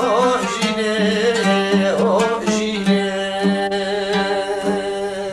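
Kurdish folk song: a man singing long held notes with wavering ornaments over a steady instrumental accompaniment.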